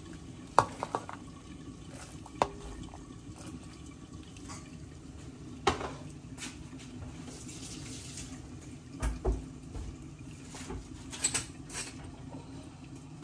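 Kitchen work sounds: scattered clinks and knocks of utensils against pots and dishes, about eight in all, over a faint steady hiss.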